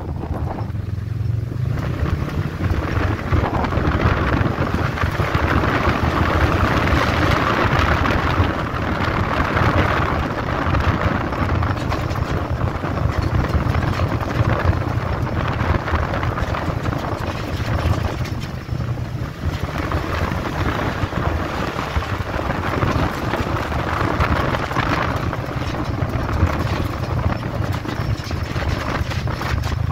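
Polaris RZR side-by-side's engine running steadily under way on a dirt trail, with a broad rush of wind and road noise over it. The engine eases off briefly about a second in and again about two-thirds of the way through.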